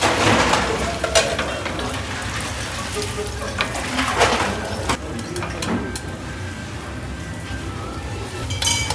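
Food frying in hot oil, a steady sizzle that swells twice, near the start and about four seconds in, with scattered light clinks of utensils.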